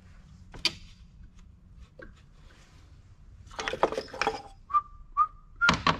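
Clicks and metal clatter of a ratchet wrench working a bolt loose on the water pump assembly. Two short, steady whistle-like tones follow near the end.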